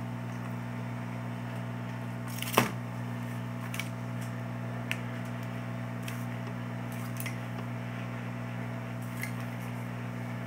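Heat gun running, its fan motor giving a steady hum with a light hiss of air, while it shrinks PVC heat-shrink film onto a battery pack. A sharp click comes about two and a half seconds in, and a few faint clicks follow later.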